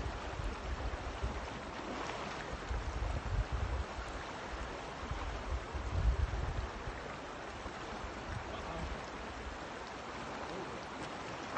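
Fast-flowing river rushing steadily over a rocky bed, with irregular bursts of low wind rumble on the microphone, loudest about six seconds in.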